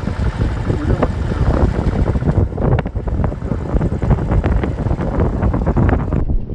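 Moving vehicle's engine and road noise, with heavy wind buffeting the microphone in uneven gusts.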